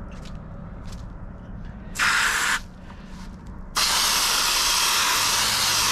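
Garden hose spray nozzle spraying water onto a paintbrush's bristles to rinse out paint: a short burst of spray about two seconds in, then a steady spray from near the four-second mark.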